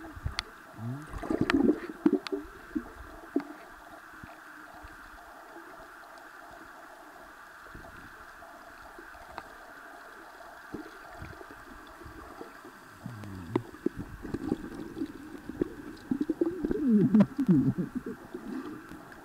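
Sound picked up with the phone's microphone under water: muffled gurgling and sloshing over a steady hiss, with low warbling sounds and sharp clicks in the first two seconds and again through the last six seconds, and a calmer steady hiss in between.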